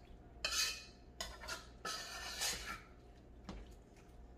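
A spoon stirring curried conch in a stainless steel pot, giving about three scraping strokes over the first three seconds, then a single light tick near the end.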